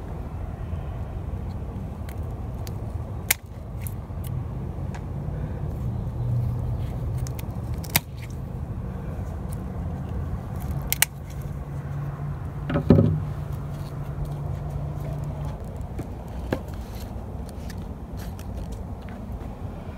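Hand pruning shears snipping through woody succulent stems: sharp clicks every few seconds, with one louder knock about two-thirds of the way through, over a steady low rumble.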